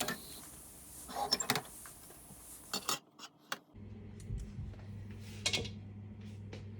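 Scattered light clinks and knocks of kitchen utensils and cookware, with a steady low hum coming in about halfway through.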